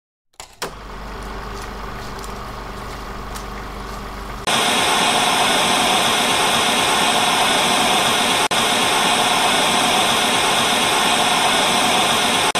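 A click, then a low electrical hum with faint hiss; a little over four seconds in, loud television static cuts in, a steady white-noise hiss.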